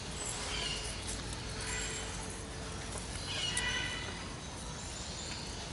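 Faint background with a steady low hum and a few brief high-pitched animal calls, one shortly after the start and a longer one about three seconds in.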